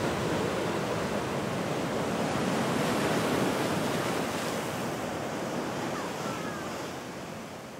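Ocean surf breaking and washing toward the shore, a steady rush of noise that slowly eases off toward the end. A few faint chirps come near the end.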